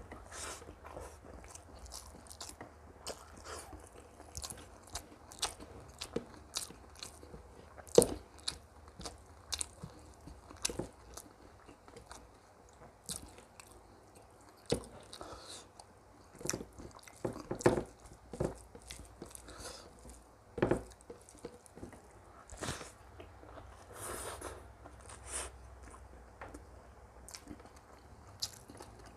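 A person chewing and biting food close to the microphone: irregular crunches and wet mouth clicks, the sharpest about eight seconds in.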